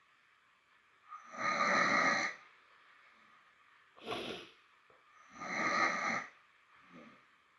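A man snoring heavily in his sleep: two long snores about four seconds apart, a short sharper breath between them, and a faint one near the end.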